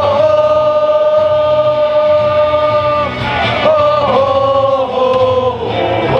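A Taiwanese baseball batter's cheer song played loudly over the stadium sound system, with many voices singing along in long held notes that change pitch about three and a half seconds in.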